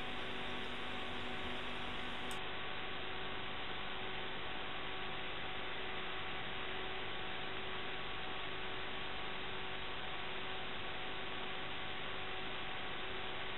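Steady hiss with a faint electrical hum and thin steady tones, unchanging throughout: background noise on the recording's audio track rather than any plainly heard event.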